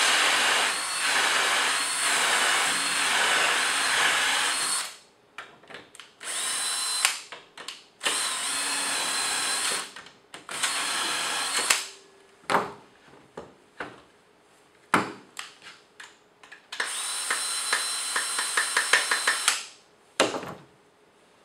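Cordless drill driving the three bits of a Blum Ecodrill hinge-boring jig, running in bursts with a steady whine: one long run of about five seconds, three shorter runs with clicks of handling between them, and a last run with a fast rattle of ticks. A thump near the end as the drill is set down on the bench.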